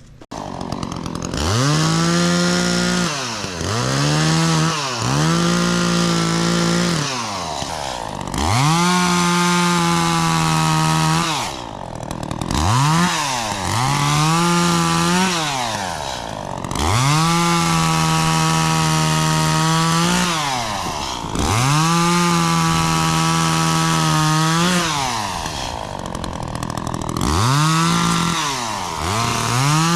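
Two-stroke chainsaw, an Echo CS-400, cutting wood: it revs up, holds at full throttle for a few seconds, then drops back to idle, about eight times over.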